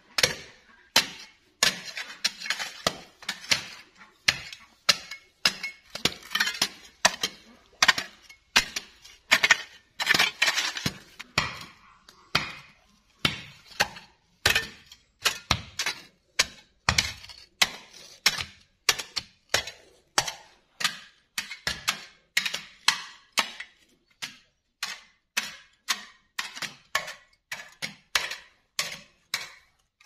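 Hand digging bars, including a steel bar, repeatedly striking and chipping hard, stony soil, at roughly one or two strikes a second, with a clinking ring on each hit and quicker clusters of strikes early on and around ten seconds in.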